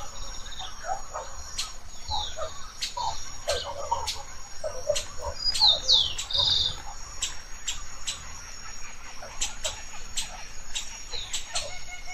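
Several wild birds calling in the tree canopy: short, sharp high notes repeated at irregular intervals, with a few brief falling whistles, over a steady high-pitched drone.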